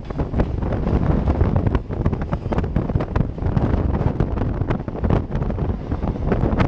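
Wind buffeting the microphone of a camera mounted on the outside of a moving electric multiple unit (EMU) train, over the steady rumble of the train running on the track with frequent sharp knocks from the wheels.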